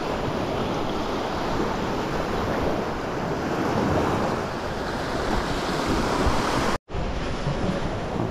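Small sea waves washing onto a sandy shore in a steady surf wash, with wind buffeting the microphone. The sound drops out for an instant near the end.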